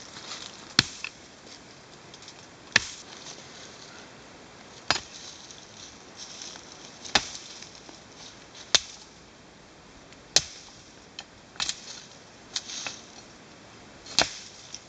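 Pick blade chopping into soil and wild tamarind tree roots: about nine sharp strikes, one every second or two, as the roots holding the tree are busted.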